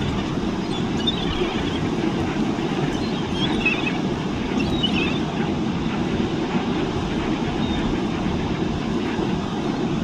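Steady low roar of ocean surf and wind on a phone microphone, with a few faint gull calls about one, four and five seconds in.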